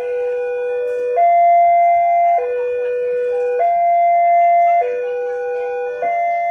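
Electronic railway level-crossing warning alarm sounding two alternating notes, a low one and a higher one, each held a little over a second in a steady repeating cycle.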